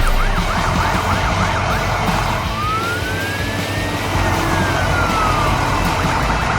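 Emergency vehicle siren: a fast up-and-down yelp, then one slow rising and falling wail, then the fast yelp again near the end, over a steady low rumble.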